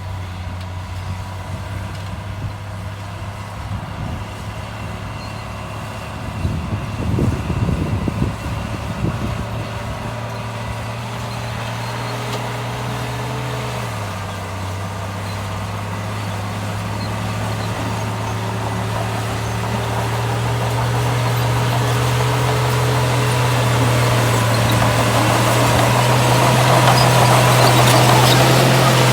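Heavy diesel engine of earthmoving machinery running steadily, with a rough burst of clatter around seven to nine seconds in. Its pitch drops about halfway through, then climbs slowly and grows louder toward the end as it works harder.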